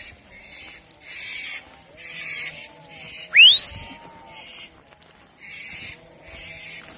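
Sheep bleating in a mob, over a high pulsing chirr that repeats about once a second. About halfway through comes one sharp, rising whistle, the loudest sound.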